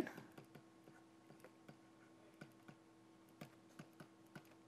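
Faint, irregular clicks of a stylus tapping on a pen tablet as words are handwritten, over a steady faint hum.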